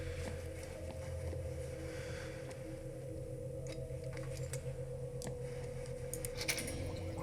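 A steady low mechanical hum with a constant held tone, dotted with scattered short clicks and ticks: a dubbed machinery sound effect.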